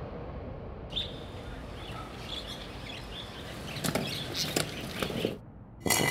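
Background sound effect of birds chirping and wings fluttering over a faint steady hiss. Near the end it cuts out briefly and a loud burst of harsh noise starts.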